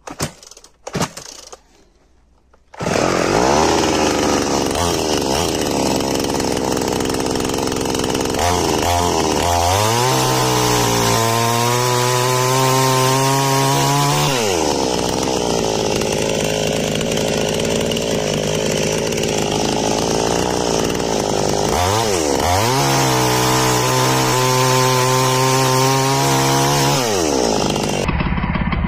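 A Piranha chainsaw cutting a block of wood. After a few light knocks, the saw starts suddenly about three seconds in and runs loudly. Its pitch rises and falls several times, and it stops just before the end.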